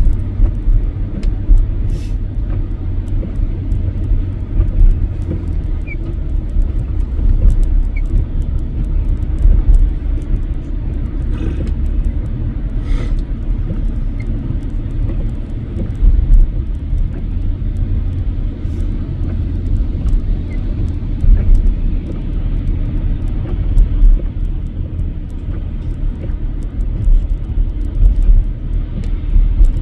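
Truck driving through deep snow: a steady low rumble of engine and tyres, with a few faint knocks.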